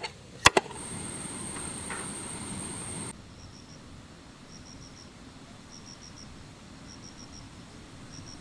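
Two sharp knocks, then a steady hiss until a cut about three seconds in. After the cut come faint, high insect chirps, each a quick train of three or four pulses, repeating about once a second.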